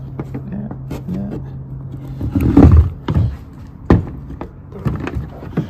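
A power cable and its plastic plug are handled and pushed into the socket of an electric dirt-bike battery charger, giving scattered clicks and knocks. A loud rough rumble comes a little over two seconds in, and a low steady hum stops at about the same time.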